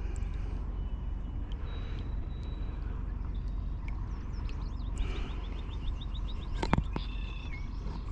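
Small birds calling: thin high whistled notes, then a rapid run of about a dozen short high notes about five seconds in and a short chirp near the end. Under it is a steady low rumble, with a single sharp knock just before the last chirp.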